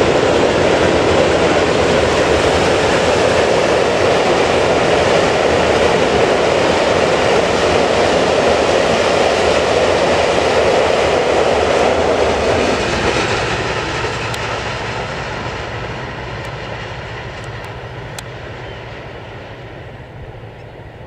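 Passenger coaches of a long express train rolling past over a bridge, a steady loud rush of wheel and rail noise that begins to fade about twelve seconds in as the train draws away.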